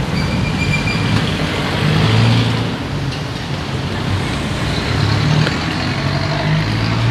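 Steady outdoor street noise with a low, engine-like hum that swells and fades, like passing traffic.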